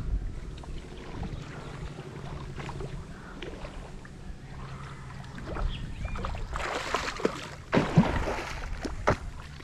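River water sloshing and splashing close to the microphone over a low steady rumble, the splashing growing louder and busier from about two-thirds of the way through.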